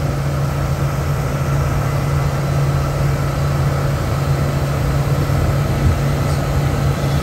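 Motorboat engine running steadily under way, a constant low drone heard from aboard.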